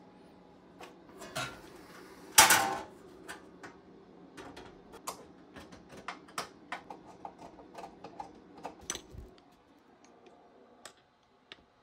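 Irregular clicks and taps of small metal parts and tools being handled at an electrical breaker panel, with one louder clatter about two and a half seconds in, over a faint steady hum.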